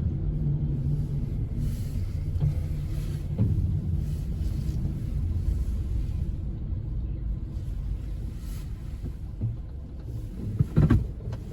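Strong wind buffeting the microphone: a gusting low rumble that rises and falls throughout, with a short, louder sound near the end.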